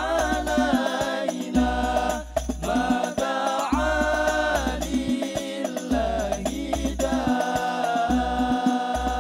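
An Al Banjari ensemble performing sholawat: several male voices chanting long melodic phrases together over terbang frame drums, with deep bass strokes in a repeating pattern and sharp hand slaps on the drumheads.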